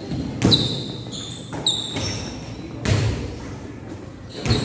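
Basketball bouncing on an indoor court, a few loud echoing thuds at uneven spacing, with brief high-pitched squeaks of sneakers on the court floor in between.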